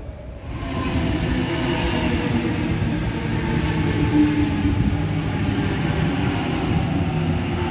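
Sydney Trains double-deck electric train running past close by: a steady rumble of wheels on rail with a faint hum from the motors. It gets louder about half a second in.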